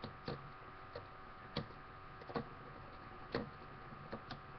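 Two metal Beyblade spinning tops, Fang Leone and L Drago Guardian, clashing as they spin in a plastic stadium: sharp, irregular clicks, about seven in four and a half seconds, over a faint steady hum.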